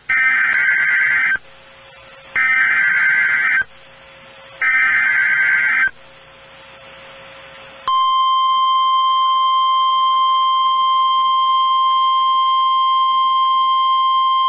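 Emergency Alert System signal opening a National Weather Service warning. Three harsh, buzzing bursts of SAME header data, each about a second long with short gaps between them, are followed about eight seconds in by the steady, single-pitch Weather Service alert tone, which holds unbroken.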